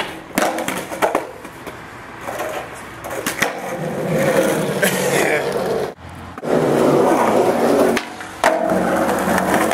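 Skateboard clacking a few times in the first second or so, then its wheels rolling over pavement in long runs broken by brief pauses.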